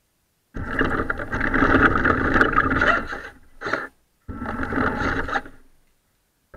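Nikko radio-controlled toy car's electric motor and tyres running over rough pebbled concrete, heard close up from a camera mounted on the car. It runs in spurts that start abruptly: a long run of about three seconds, a brief one, then another of about a second and a half.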